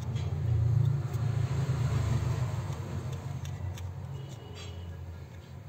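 A low, steady mechanical rumble that swells about a second in and then slowly fades, with a few faint clicks over it.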